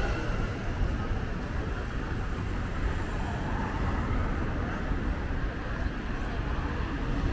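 Steady road traffic noise: cars running along a city street.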